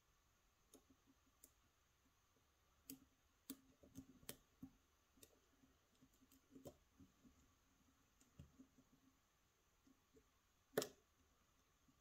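Faint ticks and scrapes of a steel lock pick working the pins of a pin-tumbler cylinder lock under tension, with one louder click about 11 seconds in as pin one sets at the shear line.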